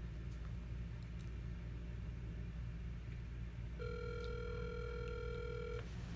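Phone ringback tone of an outgoing call, the line ringing while waiting for the other end to answer: one steady two-second ring about four seconds in, in the usual two-seconds-on, four-seconds-off cadence. A low steady hum runs underneath.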